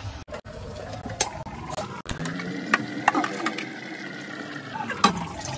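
Dishes being washed by hand in a stainless steel sink: water running, with several sharp knocks of metal cookware against the sink.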